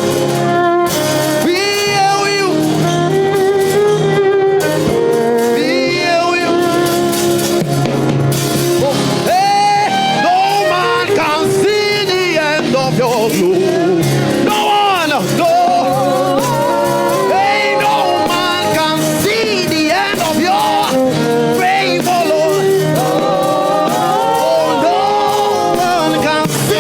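A gospel choir singing with live band accompaniment, steady and loud throughout.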